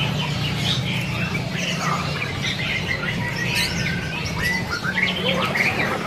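Many caged songbirds chirping, whistling and calling over one another, with short squawks, over a steady low hum.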